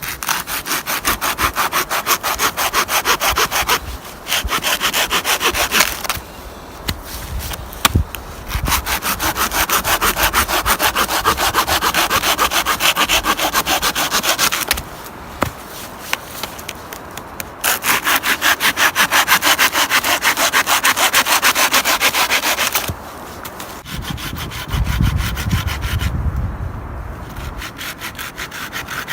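Hand saw cutting through firewood with fast back-and-forth strokes, in several bouts separated by short pauses.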